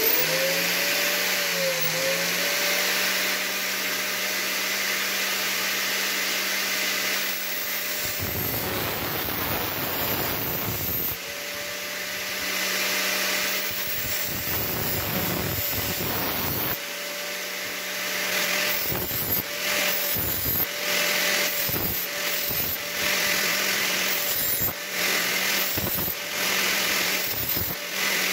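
An angle grinder, mounted in a vise as a makeshift bench grinder, switches on and runs with a steady whine. A steel knife blade is pressed against the spinning abrasive disc in two long grinding passes, then in many short touches near the end, each contact adding a harsh, scraping grind.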